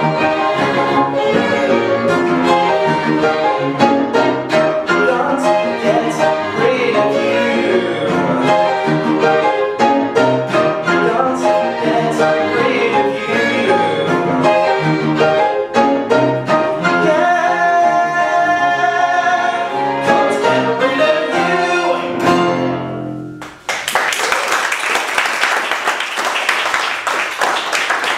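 String quartet and piano playing the instrumental close of a piece. The music ends about 23 seconds in, and audience applause follows.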